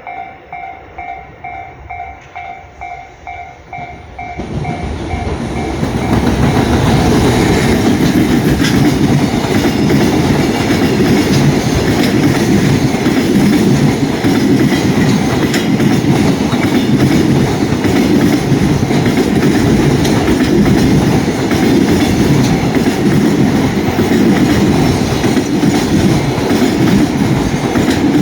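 A Japanese level-crossing warning bell rings in a steady rapid pulse. About four seconds in, a JR container freight train comes up and passes over the crossing. Its wheels run loudly and steadily with a clickety-clack over the rail joints, drowning the bell.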